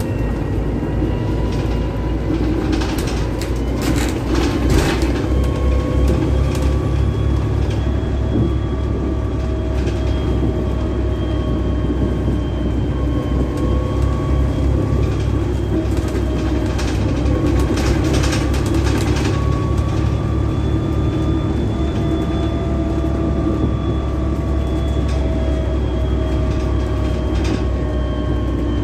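Inside a Volvo B7TL double-decker bus on the move: a steady engine drone with a driveline whine whose pitch slowly rises and falls as the speed changes. Short rattles of the body and fittings come in bunches now and then.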